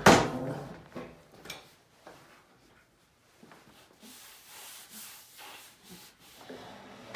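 Herman Miller Envelop desktop panel set down onto its metal base with one loud knock that rings briefly, then a light click and soft rubbing as hands press and slide the top into place.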